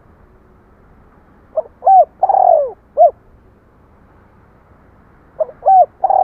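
Spotted dove cooing: a phrase of a few short arched coos, with a longer falling coo in the middle. The same phrase starts again near the end.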